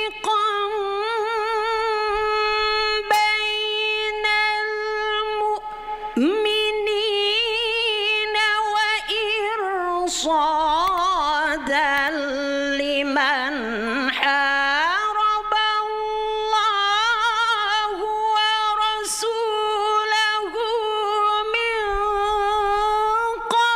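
A woman reciting the Qur'an in melodic tarannum style, holding long wavering notes. An upward swoop comes about six seconds in, and ornamented runs sink lower in the middle before she settles back on the held note. The recitation breaks off near the end.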